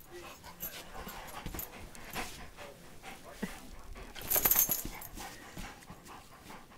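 A dog panting close up, in quick uneven breaths. About four seconds in comes one louder, hissy burst lasting about half a second.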